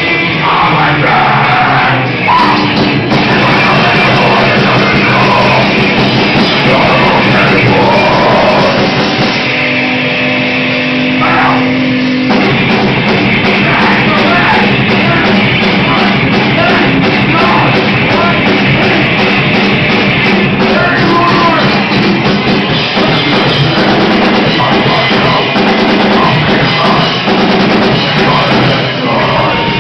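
A rock band playing live, loud, with drum kit and singing.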